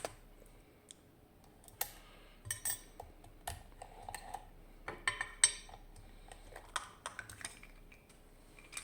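Small metal clicks and clinks from handling a just-picked GeGe AP 2000 lock and its picking tools: irregular sharp taps, a few ringing briefly.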